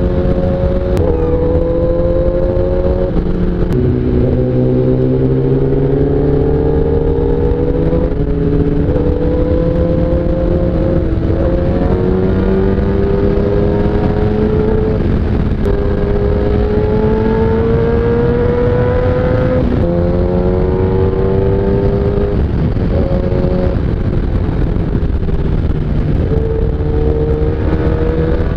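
Superbike's inline-four engine heard while riding. Its pitch climbs slowly under steady throttle and steps several times at gear changes.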